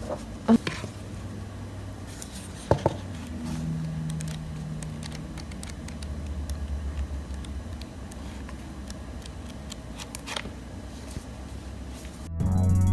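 Low steady room hum with a few small clicks from handling, then music with drums coming in near the end.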